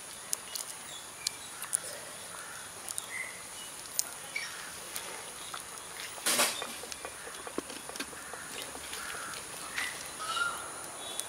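Outdoor ambience of birds making short chirps over a steady high-pitched insect drone, with scattered sharp crackling clicks from the burning wood fire. A short, louder burst of noise comes about six seconds in.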